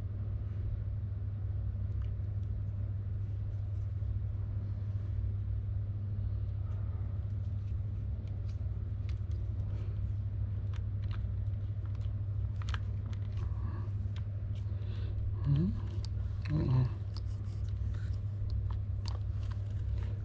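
Light clicks and ticks of hands handling fishing line and a Shimano Plays 3000 electric reel, coming thicker in the second half, over a steady low hum.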